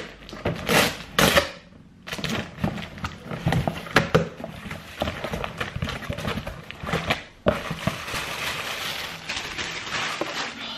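A cardboard parcel being opened by hand: cardboard and packaging tearing and rustling, a dense run of short crackles with a brief lull about two seconds in.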